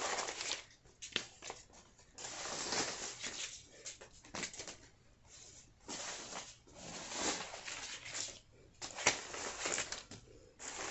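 Paper dollar bills rustling and fluttering as they are tossed into the air and fall, in several bursts with short pauses between them.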